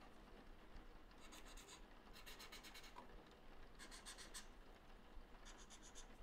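Felt-tip permanent marker (Edding 3000) drawn across the printing platen in four short strokes, each a brief scratchy squeak of the tip on the surface.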